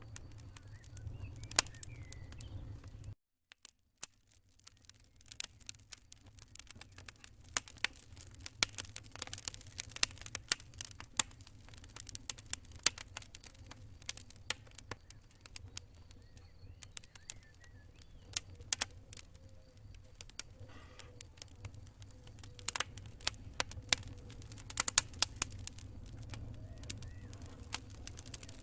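Wood fire crackling in a fireplace: dense, irregular sharp pops and snaps over a low rumble of the flames. The sound drops out for about a second near three seconds in, then builds back up.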